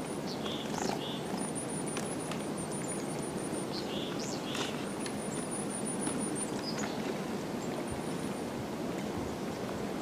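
Small winter songbirds calling: very high thin twittering trills in several stretches and short chirps twice, over a steady low background rumble.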